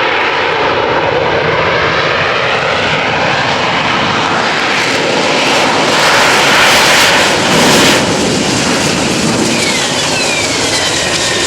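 Harrier GR7's Rolls-Royce Pegasus jet engine running loud and steady. The noise swells for a couple of seconds in the middle, and near the end a high whine falls in pitch.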